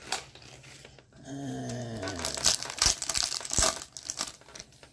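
Foil hockey card pack wrapper being torn open and crinkled by gloved hands. A dense, crackly crinkling swells about halfway in and eases off near the end.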